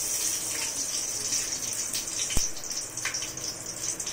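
Ghee sizzling as it melts in a hot aluminium cooking pot: a steady hiss, with one sharp click about two and a half seconds in.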